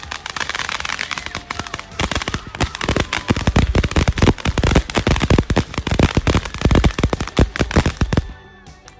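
Firecrackers going off: a hiss for about two seconds, then a rapid, crackling run of sharp bangs for about six seconds that stops shortly before the end.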